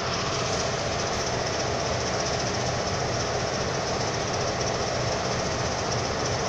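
Diesel freight locomotive's engine running steadily, a constant noise with a low hum underneath.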